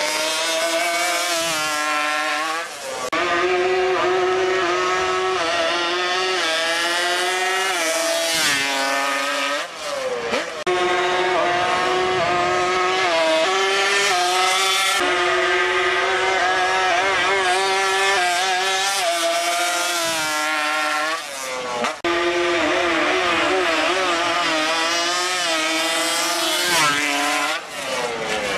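Small high-revving engines of drag-racing ATVs and trikes at full throttle, run after run. The pitch climbs repeatedly as each machine accelerates, then drops and climbs again.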